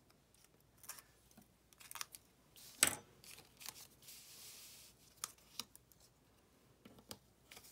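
Small handling sounds of paper crafting: metal tweezers and cardstock pieces clicking and tapping on a craft mat, with one sharp click about three seconds in. Around four seconds in, a soft rustle lasting about a second as the sheet of foam dimensionals is slid aside.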